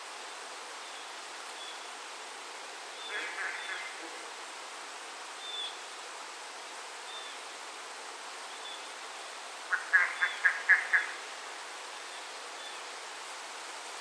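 Steady rain hiss, with an animal calling in a quick series of short pulses twice: a softer series about three seconds in and a louder run of five or six pulses about ten seconds in. Faint high chirps repeat about every second.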